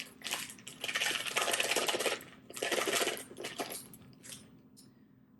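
Kitchen handling noise: a run of short rustling and scraping bursts with small clinks, fading out near the end, as cream cheese is handled for the pot.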